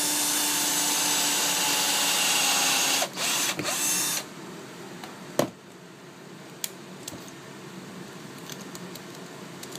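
Power drill running in plywood: a steady motor whine whose pitch sags slightly for about three seconds, then a few short bursts before it stops about four seconds in. A sharp knock follows about a second later, then a few light clicks.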